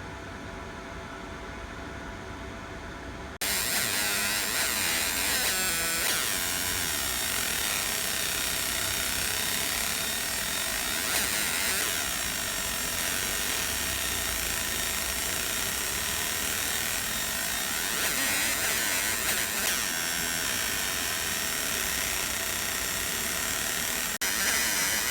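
50 W fiber laser marking machine deep-engraving metal. After a low steady hum, a loud high-pitched buzzing hiss starts suddenly about three seconds in, with repeated sweeping changes in pitch as the beam scans. It breaks off for an instant near the end.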